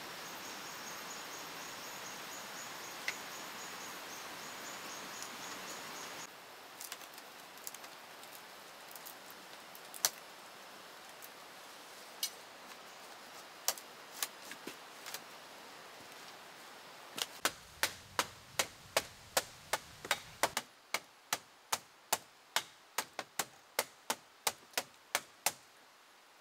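A tool striking wood: scattered single knocks, then a steady run of sharp strikes about two and a half a second from about two-thirds of the way through. Before the knocks there is an outdoor background with a steady high insect buzz, which cuts off suddenly.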